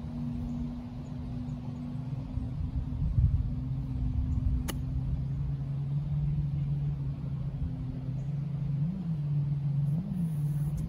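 A golf club strikes the ball with one sharp click about four and a half seconds in. Under it runs a steady low engine hum with a wind rumble on the microphone.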